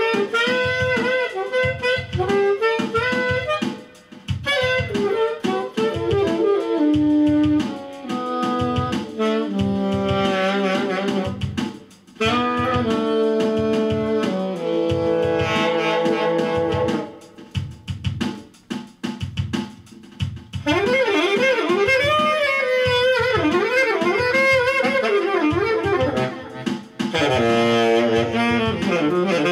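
Saxophone playing a jazz line in phrases of held and stepping notes, over a steady drum beat. The player likens its tone to an elephant blowing its horn.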